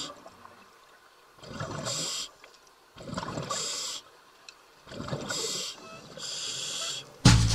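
Scuba diver breathing underwater through a regulator: four separate bursts of hissing air and bubbles, one every second or two. Loud music with percussion cuts in near the end.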